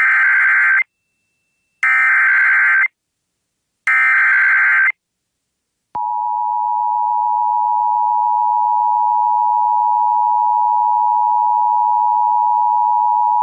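Emergency Alert System header: three one-second bursts of warbling digital data, a second apart, which encode the alert. After a short pause comes the long, steady attention tone, starting about six seconds in, that precedes the spoken warning.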